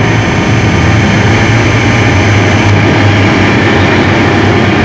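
Avro Shackleton's four Rolls-Royce Griffon V12 piston engines running steadily on the ground after start. It is a loud, even engine noise with a strong low hum.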